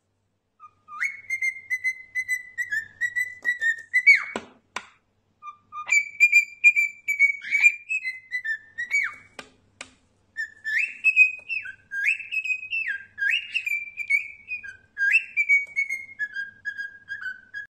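Cockatiel whistling a tune: a run of clear whistled notes with quick upward leaps, in phrases broken by short pauses. A few sharp clicks come in between.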